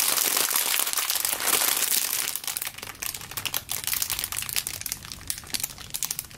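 Clear plastic packaging bag crinkling as hands squeeze and turn a jumbo sheep squishy sealed inside it. The crackling is dense for the first couple of seconds, then thins to scattered crinkles.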